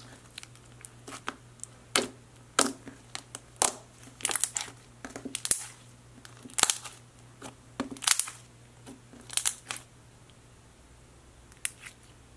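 Glossy blue glue slime being squished, pressed and stretched by hand, giving irregular sharp pops and clicks as trapped air bubbles burst. The pops thin out for a second or so near the end.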